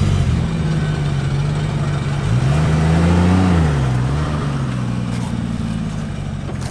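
Nissan R32 Skyline GT-R's RB26 straight-six, converted to a single HKS T04R turbo, running just after being started. Its pitch rises briefly with a light rev about two seconds in, falls back about a second and a half later, then holds steady.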